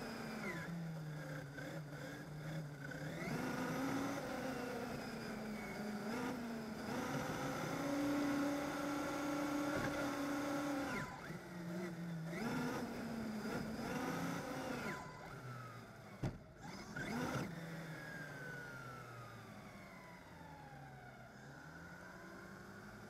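Traxxas Slash RC truck's electric motor whining, its pitch rising and falling as the throttle is worked, picked up by a camera mounted on the truck. A couple of sharp knocks come about two-thirds of the way through.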